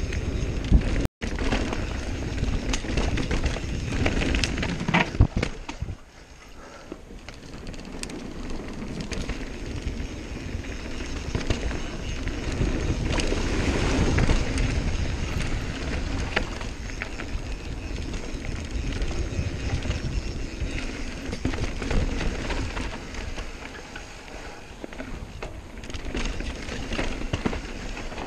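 Santa Cruz Nomad mountain bike riding down dirt singletrack: wind rushing over the camera microphone and tyres on the dirt, with knocks and clacks from the bike over bumps, busiest in the first few seconds. The sound cuts out for an instant about a second in, drops back near six seconds, then builds again and eases.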